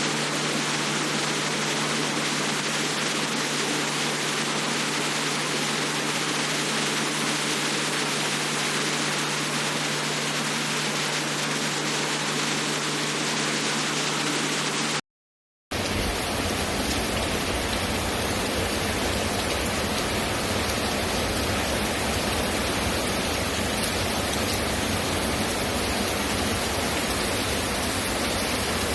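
Steady heavy rain falling. About halfway through it cuts out for a moment and resumes with more low rumble underneath.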